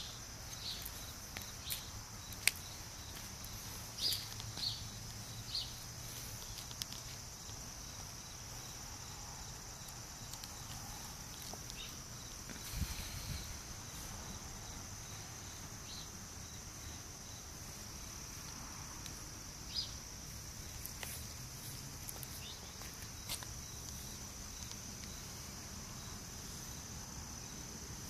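Steady high-pitched chorus of insects chirping, with occasional short clicks and scuffs on top, the sharpest a couple of seconds in.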